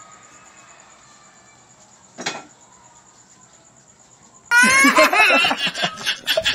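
Faint background with a single short knock about two seconds in, then a person's loud, wavering laughter starts suddenly near the end and carries on in quick pulses.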